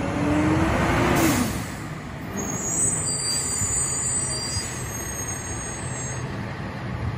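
Rear-loader garbage truck's diesel engine running as it rolls slowly up the street, with a short hiss of air about a second in, typical of the truck's air brakes. A thin high whine sounds for a few seconds in the middle.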